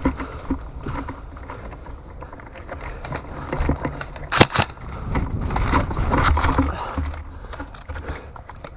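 Handling noise and rustling of a player moving with a body-worn camera during an airsoft game, with scattered clicks and one sharp crack about four and a half seconds in.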